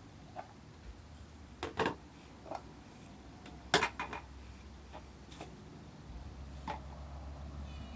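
Scattered light clicks and knocks of a plastic laundry basket and other things being handled on a concrete floor, the loudest a sharp knock about four seconds in. A cat starts to meow right at the end.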